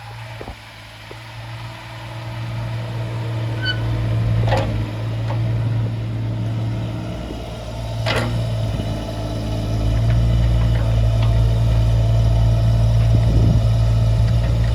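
Kubota U17-3 mini excavator's three-cylinder diesel engine running with a steady low hum. It picks up about a third of the way in and again past the middle, as if under hydraulic load. Two sharp clanks come about four and eight seconds in.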